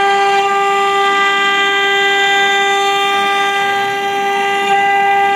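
Acctek CNC router spindle running with a steady high whine at one unchanging pitch while its bit cuts into a wood panel, with a rough cutting noise underneath.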